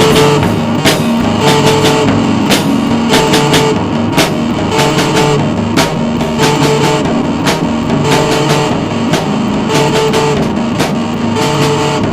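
Rock music, instrumental: distorted electric guitar, bass and a drum kit playing a steady beat with regular cymbal and snare hits.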